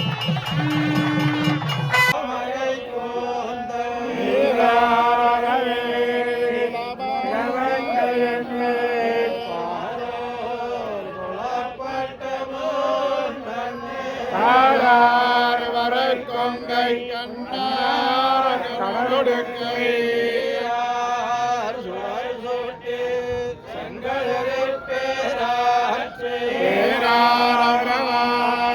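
Devotional chanting in a South Indian style, a melodic line gliding over a steady held drone. A different sound cuts off about two seconds in, where the chant takes over.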